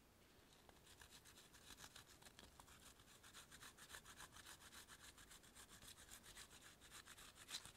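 Frozen gorgonzola cheese being grated on a flat hand grater: quick, even scraping strokes, with a sharp tap near the end.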